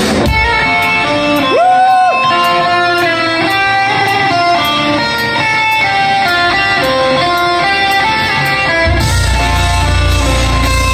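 Metalcore band playing live: an electric guitar intro of single picked notes, with one note bent upward about two seconds in, over a steady high ticking. At about nine seconds a heavy low end of bass and drums comes in under the guitar.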